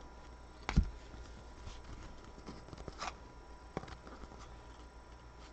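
Trading cards being handled and flipped through, with a few light taps and clicks, the strongest about a second in.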